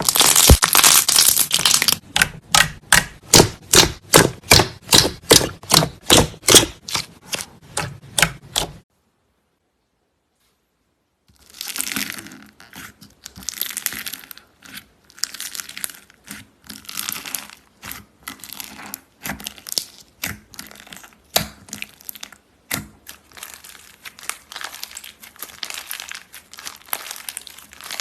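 Slime being squeezed and pressed by hand, giving crackly, popping squelches in a quick, regular rhythm of about two a second. After a gap of complete silence about nine seconds in, quieter and less regular crackles of slime being worked follow.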